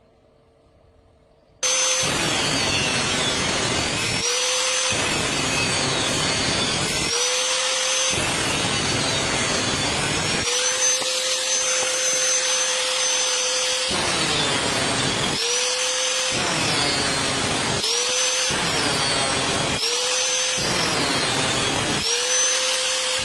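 Angle grinder grinding metal, a loud harsh noise that starts abruptly about a second and a half in. It is broken every second or two by short spells where the motor whine rises and holds as the disc comes off the work.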